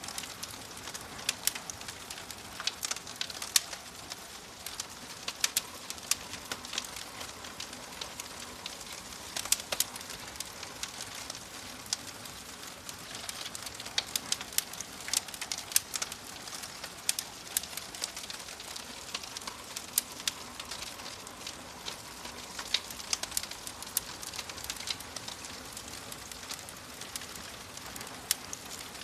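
Wood fire burning in a fireplace, crackling with frequent irregular sharp pops over a steady soft hiss.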